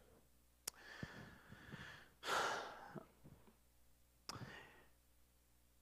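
A man's quiet breathing close into a handheld microphone: a soft breath about a second in, a longer, louder sigh a little after two seconds, and a short breath near the end, each of the first and last breaths led by a small click.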